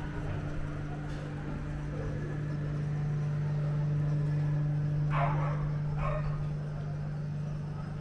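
A dog barks twice, about five and six seconds in, over a steady low hum.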